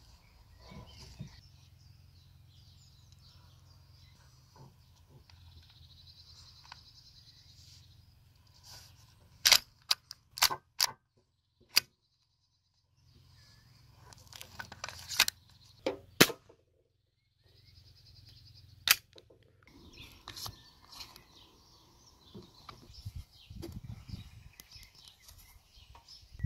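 Sharp clicks and snaps of a VFC Glock 19 Gen 3 gas-blowback airsoft pistol's slide and frame being fitted back together and worked by hand, several in quick succession about ten seconds in and a few more between about 15 and 19 seconds. Softer handling rustle of the pistol and its magazine follows.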